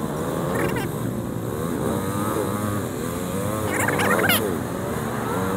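Royal Enfield Himalayan's single-cylinder engine running in traffic, played back at four times speed, so the engine note is raised in pitch and rises and falls in quick glides. A brief high-pitched sound about four seconds in is the loudest moment.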